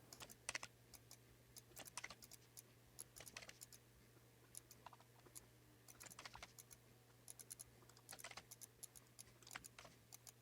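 Faint, irregular typing and clicking on a computer keyboard over a low steady hum.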